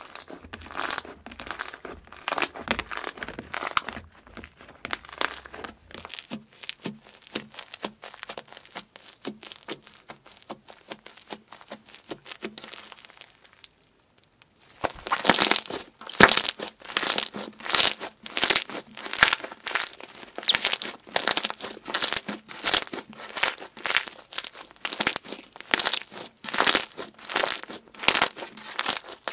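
Slime being squeezed and kneaded by hand, giving dense crackling and clicking. After a short break about halfway through, it comes back louder as rhythmic squishes with crackles, about two a second, while a softer slime is pressed and stretched.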